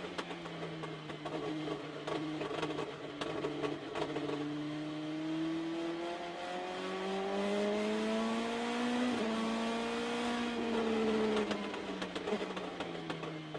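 Engine of an Indy Lights open-wheel race car, heard from the cockpit. The pitch holds steady for a few seconds, climbs for about five seconds as the car accelerates, breaks briefly about nine seconds in, then falls as the car slows near the end. A steady hiss of spray and wind runs underneath.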